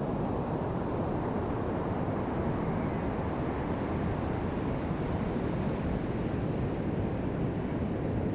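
Ocean surf rushing steadily, mixed with wind on the microphone.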